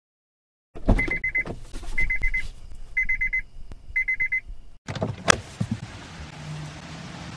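A car's electronic warning chime beeping four times, about once a second, with a few clicks just before it starts. Then a single sharp thump followed by a steady hiss with a faint low hum.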